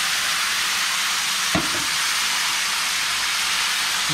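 Seasoned curry goat meat sizzling loudly as it goes into a pot of hot oil with curry powder burned in it, a steady frying hiss. A single short knock sounds about a second and a half in.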